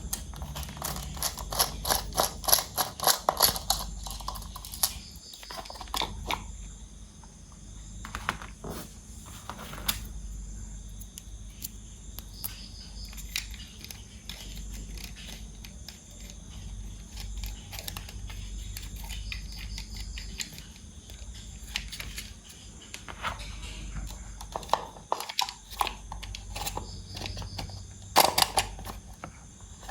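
Hard plastic clicking and rattling from toy parts being handled: a quick run of clicks in the first few seconds, then scattered single clicks, with another cluster near the end.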